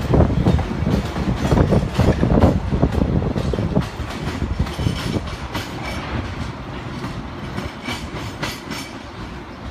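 Subway work train of ballast hopper cars rolling along the track, its wheels clicking over rail joints. The rumble is loud for the first four seconds or so, then fades as the train moves away.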